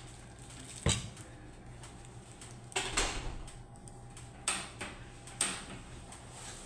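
A few short knocks and clatters of kitchenware, the sharpest about a second in and several lighter ones later, over a low steady hum.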